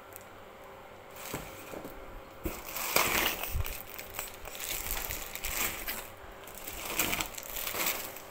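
Plastic bubble-wrap packing crinkling and rustling as it is handled and pulled out of a cardboard box. The irregular crackling starts about a second in, is loudest around three seconds, and swells again near seven seconds.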